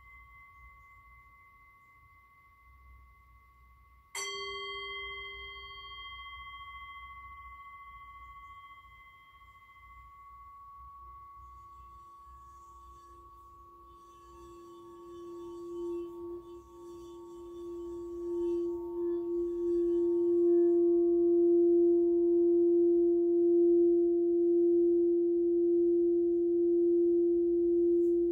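Singing bowl struck once about four seconds in, ringing out over the fading ring of an earlier strike: the strikes that mark the start of the session. From about eleven seconds a lower single tone swells as a bowl is rubbed around its rim, growing loud and held with a slow pulsing.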